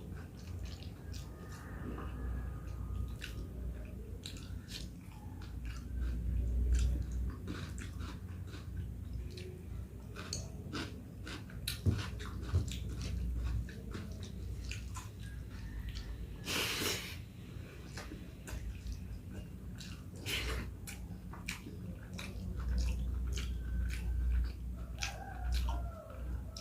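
Close-up chewing and wet mouth clicks of a person eating rice with dal and mixed vegetables, with a few louder smacks, over a low steady hum.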